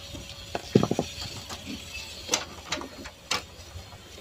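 Clicks, knocks and a short rattle of plastic and metal as the speaker terminal board of an amplifier is worked loose from its chassis by hand. The loudest is a quick burst of knocks about a second in, then single sharp clicks.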